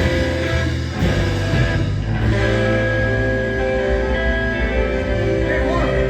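Rock band playing live, with guitar over sustained bass notes.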